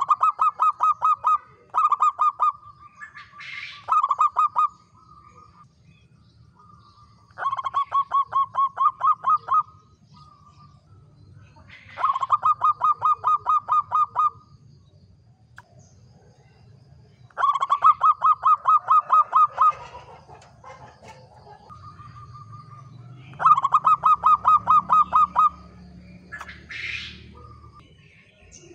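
Zebra dove (local perkutut) singing: repeated phrases of fast, even staccato coos, each phrase lasting one to two seconds, with pauses of a few seconds between them.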